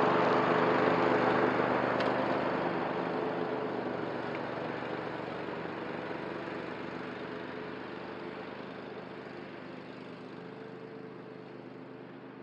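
Cub Cadet ZTS1 zero-turn mower running steadily while mowing tall grass, its engine hum fading evenly as it drives away.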